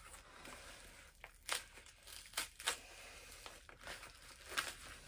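Yellow padded paper mailer envelope crinkling as it is handled and pulled open by hand, in a series of short crackles.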